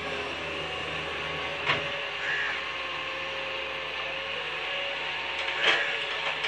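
Crane engine running steadily while it works soil, with a sharp metallic knock just under two seconds in, a short squeal just after it, and another knock near the end.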